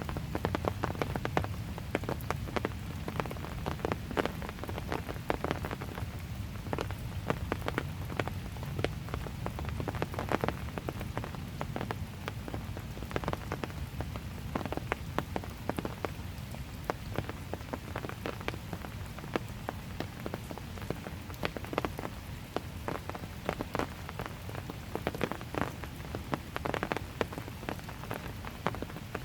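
Calm, steady rain falling, with many close drops tapping sharply and irregularly over a continuous low patter.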